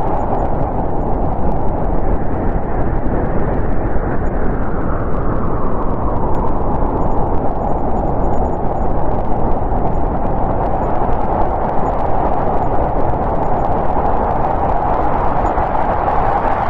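Snowstorm wind blowing steadily, a dense rush with a hollow upper tone that eases through the middle and builds again near the end.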